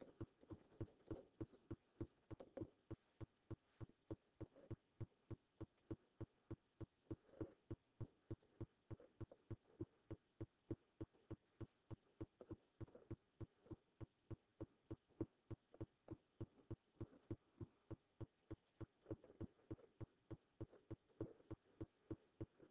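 Near silence broken by a steady train of faint, evenly spaced clicks, about three a second.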